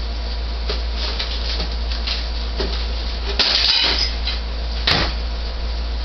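Scattered clicks and knocks from handling an open refrigerator's plastic door and shelves, over a steady low hum. A short scraping rattle comes about three and a half seconds in, and a sharp click just before five seconds.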